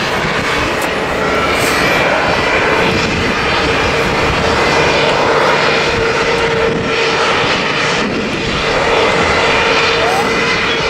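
Jet airliner engines running on the apron: a loud, steady roar with a held whine, and wind rumble on the microphone.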